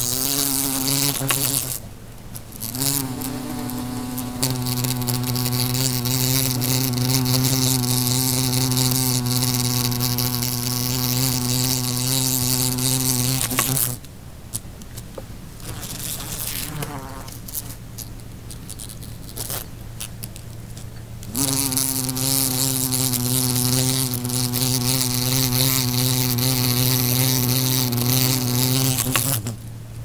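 An agitated fly buzzing loudly and steadily in long drones, with a quieter, wavering stretch in the middle before the loud buzz returns.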